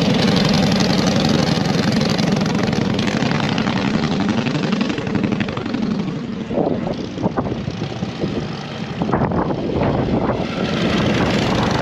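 Several motorcycles, vintage machines among them, ride by one after another through a bend, their engines rising and falling in pitch as each passes. The first pass is the loudest, and quieter ones follow in the second half.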